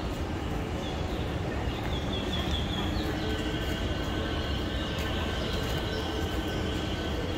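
Steady outdoor background rumble with small birds chirping high up, a quick run of chirps about two seconds in, then a thin, steady high note that holds from about three seconds in.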